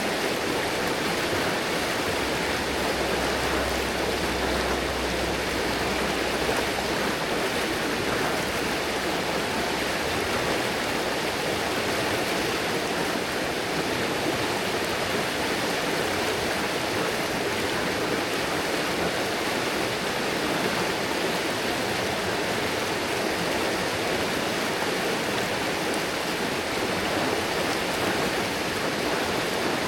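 River water flowing with a steady, even rush, plus a faint low rumble a couple of seconds in that fades after a few seconds.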